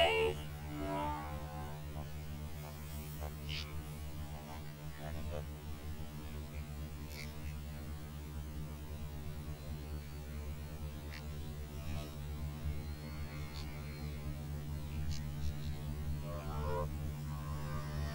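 Steady low electrical hum, with only faint scattered sounds over it.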